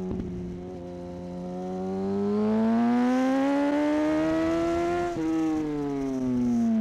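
Yamaha YZF-R1 sportbike's inline-four engine, heard from on board over wind rush. The revs hold low, then climb smoothly for about three seconds as it accelerates out of a bend. About five seconds in they break off abruptly as the throttle shuts, and the engine note falls away as the bike slows for the next corner.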